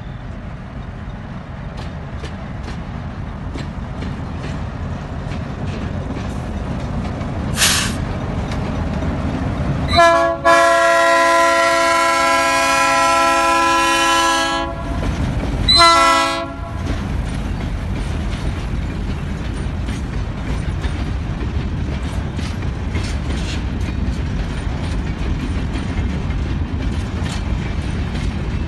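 ALCo RSD16 diesel locomotives running as a freight train passes, with the steady low rumble of engines and wheels. About ten seconds in the locomotive's multi-tone horn sounds one long blast, then a short one about a second later. The empty grain hopper wagons then roll by with light wheel clicks over the rail joints.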